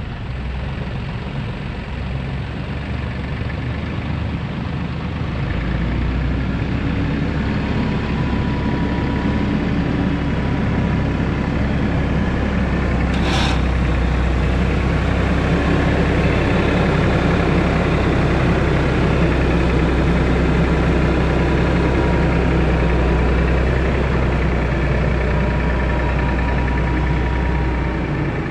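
Tractor engine running steadily, picking up in level about six seconds in, with a steady high whine joining about eight seconds in and a single sharp click about halfway through.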